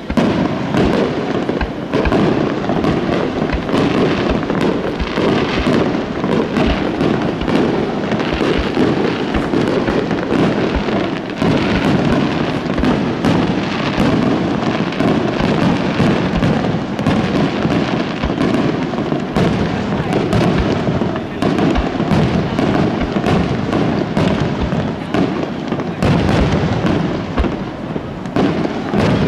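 Aerial fireworks shells bursting in a rapid, unbroken run: several sharp bangs a second with crackling between them.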